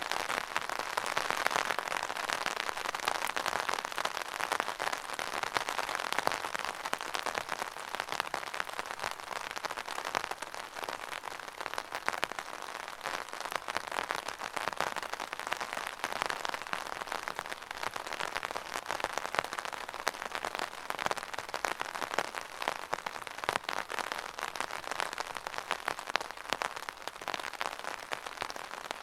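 Steady rain pattering on a surface, a dense even patter of drops with no thunder.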